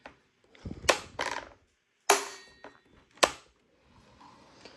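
Stihl MS310 chainsaw's chain brake handle being snapped on and released, giving about four sharp plastic-and-metal clacks in the first three seconds.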